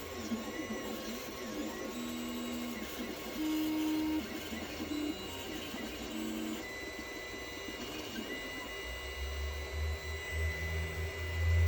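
Anycubic Chiron FDM 3D printer at work, its stepper motors whining in short steady tones that jump in pitch as the print head changes moves. A low hum grows louder near the end.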